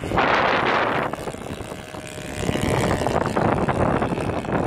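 Radio-controlled Piper Cub model's twin-cylinder four-stroke nitro engine running in flight as it passes, half buried under gusty wind buffeting the microphone, which is loudest in the first second.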